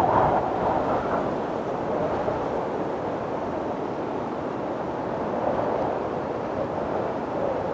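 Steady wind blowing, a continuous rushing that swells a little just at the start and again around five and a half seconds in, without a break.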